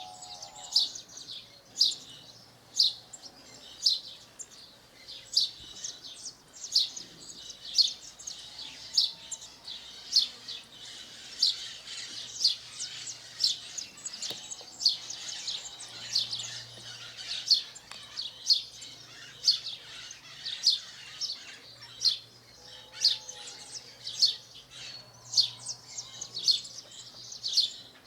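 House sparrow chirping, a long run of short, sharp, high chirps repeated about once a second, some louder than others.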